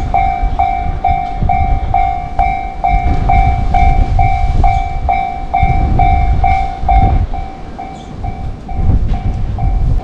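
Japanese level-crossing warning bell ringing 'kan-kan' at a steady pace of about two strikes a second, signalling that the crossing is closed for an approaching train. Beneath it runs a low rumble.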